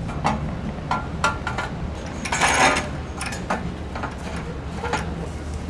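Light metallic knocks and clicks as aluminium tower tubes and brackets are handled and fitted together, with a short rasping burst about two and a half seconds in, over a steady low hum.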